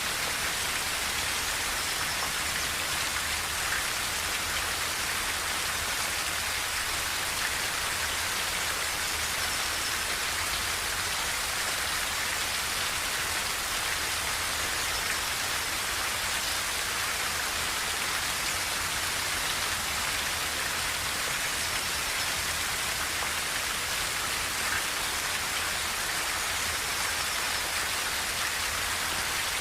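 Rain falling steadily on a tin roof: a dense, even hiss of drops with no let-up.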